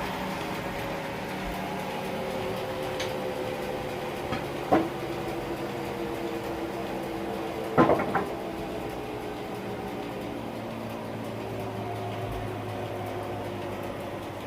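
Sawmill machinery running with a steady hum. A sharp knock comes about five seconds in and a quick run of three knocks near eight seconds, as of wood or metal being struck.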